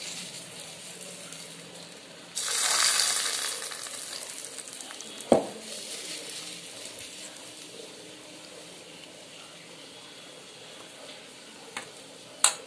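Hot oil with a nigella-seed tempering poured onto a mustard hilsa curry, sizzling sharply about two seconds in and dying away over the next couple of seconds. A spoon clinks on the steel bowl twice, once a few seconds later and once near the end.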